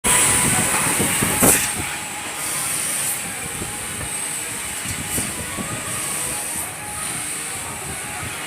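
CNC sheet-metal cutting machine hissing steadily as its cutting gas blows through the cut, with a few sharp cracks, the loudest about one and a half seconds in.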